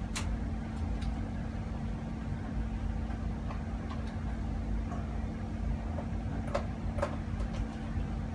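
Steady low hum of laboratory equipment with a faint constant tone, broken by a handful of light clicks as gloved hands handle the small metal pipe fittings.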